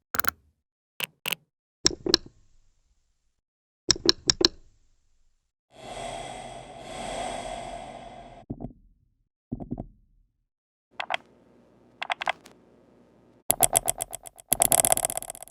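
A series of computer mouse click sound effects in differently processed variations: single and double clicks, a noisy stretch of about two and a half seconds in the middle, and a rapid run of many clicks near the end.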